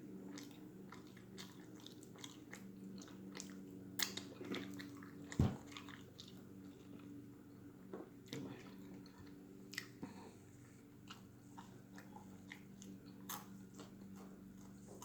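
Close-up mouth sounds of a person eating a chicken sandwich topped with Cheetos: biting, chewing and lip smacking as scattered short clicks, with one louder thump about five seconds in. A steady low hum runs underneath.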